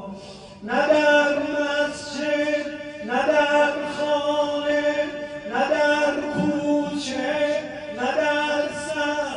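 A man's solo voice chanting a religious elegy through a microphone. It comes in about four long phrases, each opening with a rising glide and settling on held notes.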